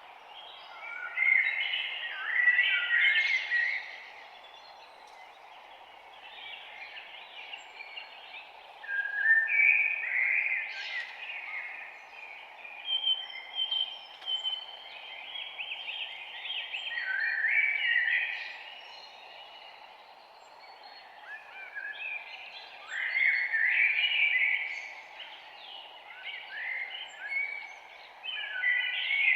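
Several songbirds singing and chirping in bursts of a few seconds, with brief pauses between bouts, over a steady low hiss of forest background noise.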